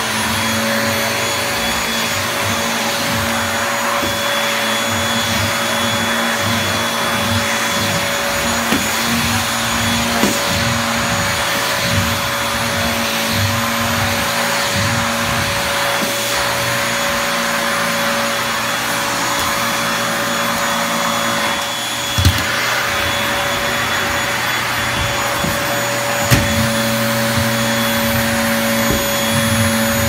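Canister vacuum cleaner running steadily, with a constant motor whine over a rushing hiss of air, as its floor head is pushed over wood-look flooring. A few short knocks come through partway in.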